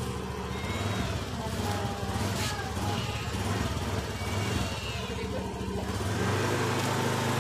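An engine running at a steady low hum, with faint voices in the background.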